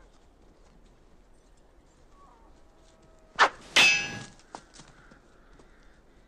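Sword blades clashing twice in quick succession, the second strike louder and ringing with a metallic tone that dies away over about half a second, followed by a couple of lighter clicks.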